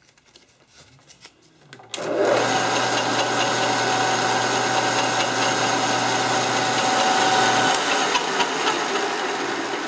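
Metal lathe switched on about two seconds in, its motor running steadily while sandpaper is held against the spinning aluminum ball to sand out tool-chatter marks. The motor's low hum drops out near the end while the spindle noise carries on a little more quietly.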